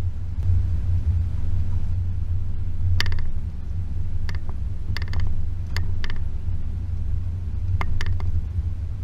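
Range Rover P38's 4.0 V8 driving off road, a steady low rumble, with sharp knocks and clicks from the vehicle every second or so from about a third of the way in.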